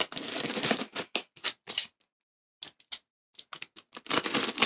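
Cardboard shipping box being opened by hand: two stretches of dense scraping and tearing noise, one at the start and one near the end, with quick scattered clicks and taps between them.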